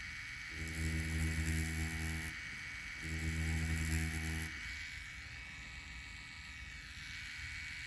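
FK Irons Spectra Flux rotary tattoo pen with a 9-round liner, running at about six volts and buzzing in two short bursts of about a second and a half each as it lines into orange peel. It stops about four and a half seconds in.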